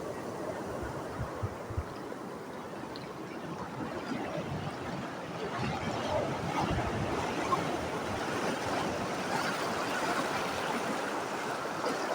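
Steady rush of water, like waves washing in, with wind buffeting the microphone; it swells a little partway through.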